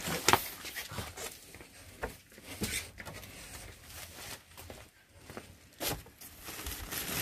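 Plastic wrapping rustling and cardboard boxes knocking as they are shifted and lifted out of a packed pallet, in scattered handling noises. A sharp knock about a third of a second in is the loudest.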